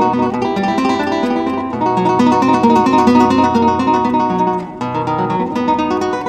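Solo classical guitar, fingerpicked: a quick run of plucked notes over held bass notes.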